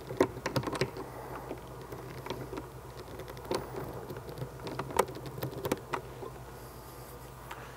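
Scattered small clicks and scrapes of a screwdriver tightening a hose clamp over plastic drain tubing on a hose barb, over a steady low hum.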